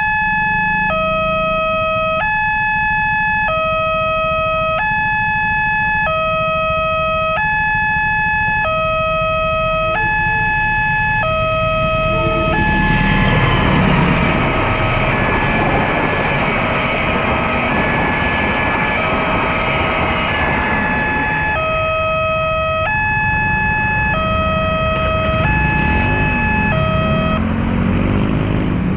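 Railway level crossing warning siren sounding an electronic two-tone alarm, alternating high and low about once a second. About twelve seconds in, a loud rushing noise, a passing train, swells and covers it for some eight seconds; the alarm stops shortly before the end.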